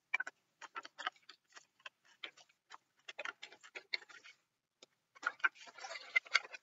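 A sheet of printer paper crackling and rustling as it is handled, folded and creased into a paper airplane: irregular sharp crackles, turning into a denser rustle near the end.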